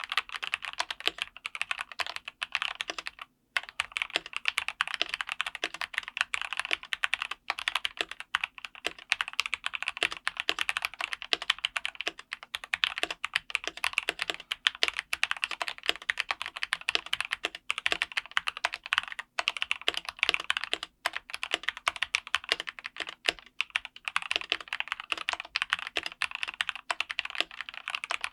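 Fast continuous typing on a Dustsilver D84 mechanical keyboard with Gateron G Pro Red linear switches: a dense run of key clicks, with a few brief pauses.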